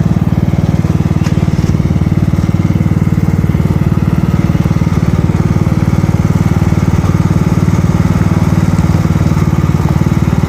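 An engine running steadily at an even speed, with a fast, regular firing pulse and a low hum.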